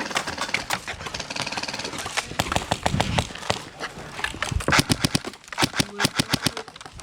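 Airsoft guns firing, with many sharp cracks, some in quick rapid-fire strings.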